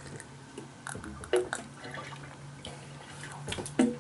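A person sipping and slurping coconut water straight from an opened coconut: a few short wet sips and swallows, over a steady low hum.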